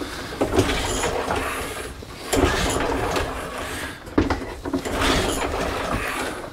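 Recoil pull-starter on a petrol rotary lawnmower's small overhead-valve engine, pulled about three times in a row. The engine turns over with a clattering whirr on each pull but does not fire, even with carb cleaner sprayed into the cylinder. The owner suspects a lack of spark.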